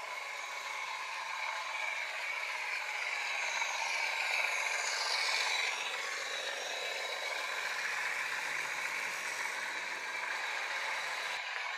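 Bachmann OO gauge Class 37 model locomotive's DCC sound decoder playing diesel engine sound through its small onboard speaker, mixed with the clatter of the loco and its hopper wagons on the track. It swells as the train passes close, about four to six seconds in.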